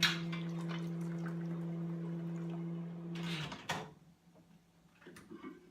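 Microwave oven running with a steady low hum that cuts off about three seconds in, followed by a short clunk and clatter, likely the door being opened.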